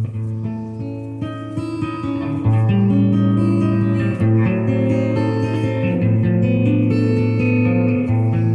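Electric guitar played through a Multivox tape echo unit, with chords and single notes ringing on. The repeats are weak and irregular because the tape is not running over the heads properly, which the owner puts partly down to the wrong tape being fitted.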